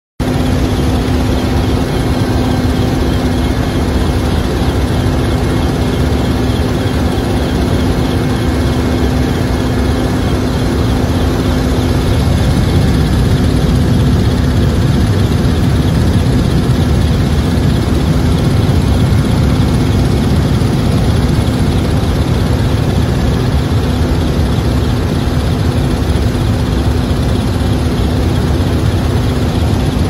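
Helicopter engine and rotor noise heard from inside the cabin by an open door: a loud, steady drone with a constant hum over a heavy low rumble.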